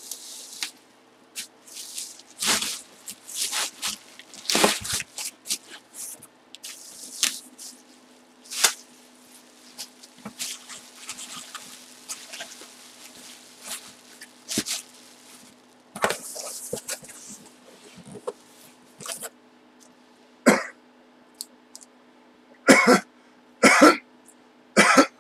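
Plastic bubble wrap rustling and crinkling in irregular bursts as it is handled and pulled off a wrapped item, with a few sharper, louder bursts near the end, over a faint steady hum.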